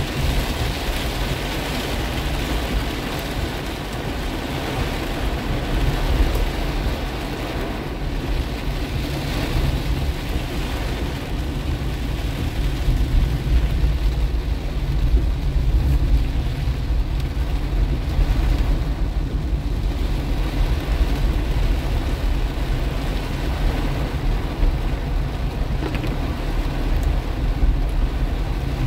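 Heavy rain pelting a moving car's roof and windshield, heard from inside the cabin over a steady low rumble of engine and tyres on the wet road. The higher hiss of the rain thins after several seconds.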